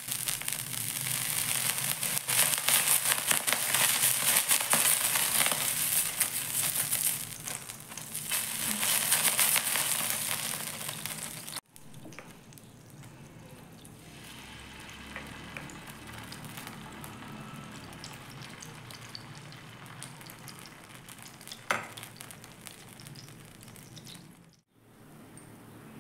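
Hot dosa tava sizzling loudly as water is sprinkled on it. After a cut comes a much quieter, steady sizzle as dosa batter is poured onto the pan and spread, with one sharp click near the end.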